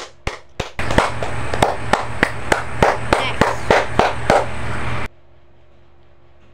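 Hand clapping: a steady run of about three claps a second that stops suddenly about five seconds in.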